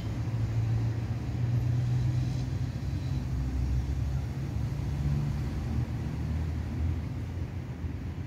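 Low, steady engine rumble, like a motor vehicle running.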